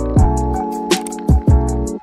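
Background music with a steady beat: deep kick drums that drop in pitch and high hi-hat ticks over sustained chords.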